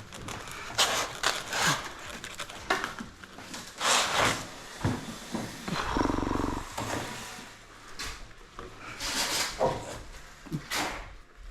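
Irregular knocks, clunks and scrapes of garage door sections being handled and fitted, with a brief steadier sound about halfway through.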